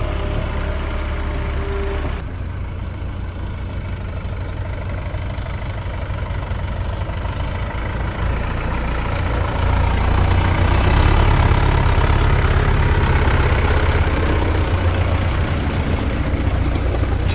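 Heavy diesel engine running steadily, getting louder about ten seconds in.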